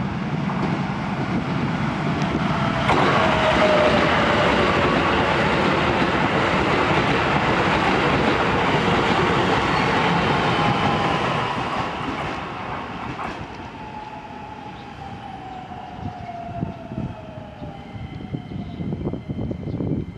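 Shin-Keisei N800 series electric train passing at close range: the rumble and rattle of its wheels on the track build up and are loudest from about 3 to 11 seconds in, then die away. In the second half a quieter train's electric motor whine falls slowly in pitch.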